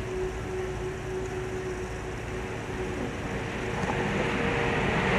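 Steady background hum and noise with a faint steady tone, slowly growing louder toward the end.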